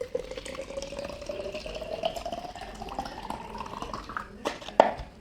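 Water running into a container, its pitch rising steadily as it fills. A sharp knock near the end is the loudest sound.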